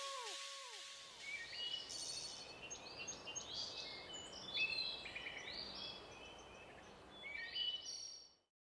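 Small birds chirping and trilling against a faint forest background hiss, after the song's last echoing notes die away in the first second. The sound cuts off abruptly near the end.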